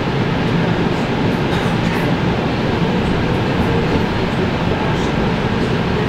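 Electric train running at speed, heard from inside the carriage: a steady noise of wheels on the track, with no change in level.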